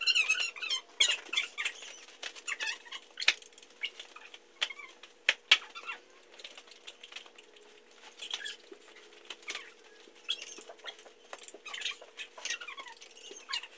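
Small birds chirping and twittering in short spells, with scattered sharp clicks and knocks, the loudest about three and five seconds in.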